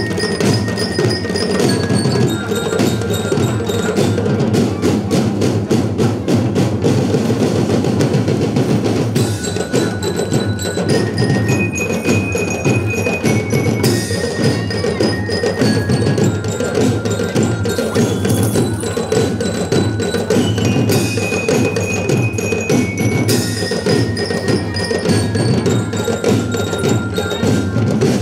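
School marching band playing: a dense beat on marching snare, tenor and bass drums under a melody on bell lyres, heard as runs of bell notes stepping downward that recur several times.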